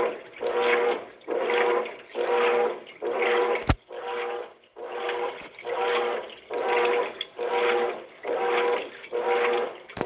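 GE top-load washing machine agitating a full tub of water and clothes: rhythmic swishing strokes, about three every two seconds, each with a hum from the motor and transmission. A single sharp click comes about a third of the way through.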